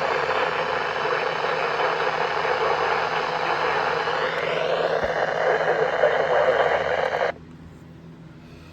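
Steady hiss of radio static from a receiver, with a faint whistle rising in pitch about halfway through. It cuts off abruptly near the end.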